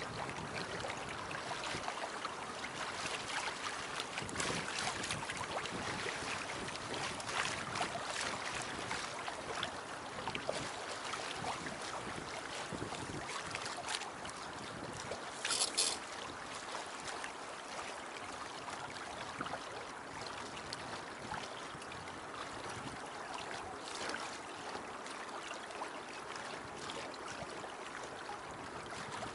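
Water rushing and splashing along the hull of a Beneteau First 20 sailboat under way, with wind on the microphone; briefly louder about halfway through.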